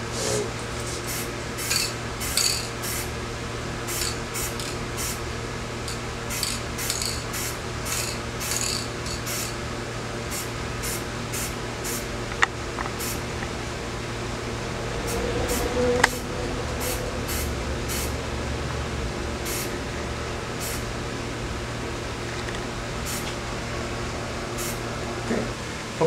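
Spray paint going onto a bicycle frame in many short spot-spray bursts, irregular and one or two a second, thinning out and stopping in the last few seconds, over a steady low hum. Two sharp ticks sound near the middle.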